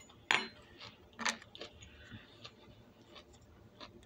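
A mouthful of broccoli being chewed: two sharp crunching clicks, the loudest about a third of a second in and another about a second later, then softer scattered mouth clicks.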